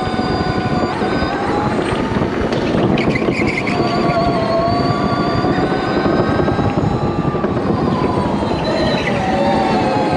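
Electric go-kart motor whining, its pitch rising and falling with speed, over a steady rush of tyre and wind noise, heard from onboard the kart. A few brief higher squeaks come about three seconds in.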